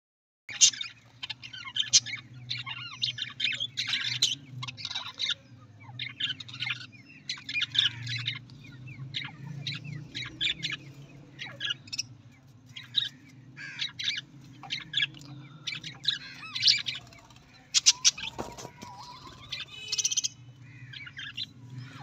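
A flock of budgerigars chattering: fast, overlapping chirps and warbles, with a steady low hum underneath.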